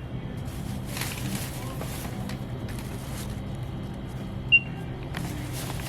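A single short, high electronic beep about four and a half seconds in, over a steady low hum.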